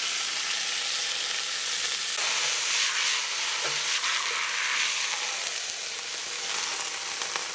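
A marinated beef roast searing in a very hot cast-iron Dutch oven: steady, dense sizzling of meat on hot iron as it is browned at high heat and turned with metal tongs.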